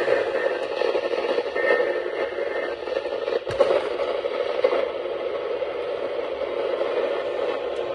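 Radio static: steady noise from a weak or untuned radio signal, with a sharp click about three and a half seconds in.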